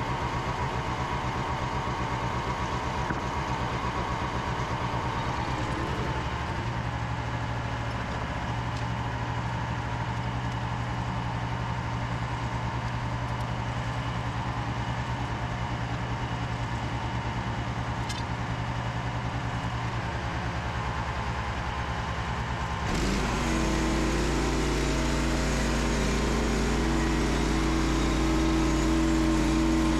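Small engine of a Frontier OS27 portable bandsaw mill running steadily. About three-quarters of the way through its note changes and it gets a little louder, then holds steady.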